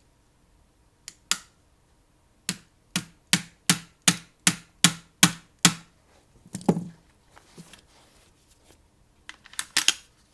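A tool tapping repeatedly on a stuck takedown part of a Panzerarms AR12 shotgun, which will not push down by hand. There is a quick run of about nine sharp taps, about two and a half a second, then a duller knock and a few clicks near the end.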